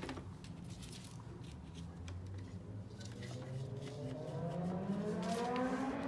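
A low droning tone that climbs slowly and steadily in pitch over several seconds, growing louder toward the end.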